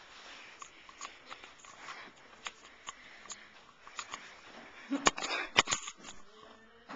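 Soft, regular steps and the rustle of a handheld camera being carried, with a louder cluster of sharp knocks and rustling about five seconds in.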